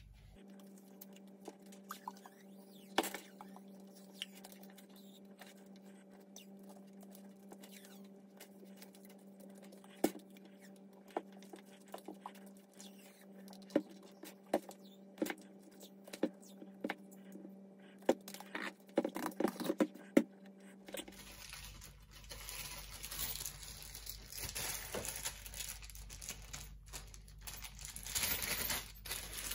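RG58 coax cable being wound by hand round a ribbed plastic bottle to make a coil: irregular small clicks, creaks and rubbing as the cable is pulled tight into the ridges, most frequent about two thirds of the way through. A steady low hum runs under the first two thirds and stops suddenly, and rustly handling noise follows.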